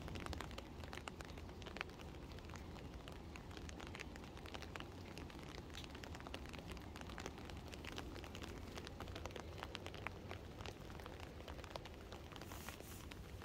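Light patter of raindrops on garden foliage, a steady haze of many small scattered ticks, with a low rumble underneath.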